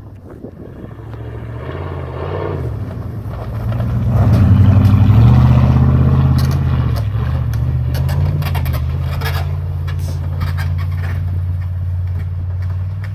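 Off-road vehicle's engine pulling hard, building over the first few seconds and loudest about four to six seconds in, then holding steady. Scattered scrapes and knocks come through the middle.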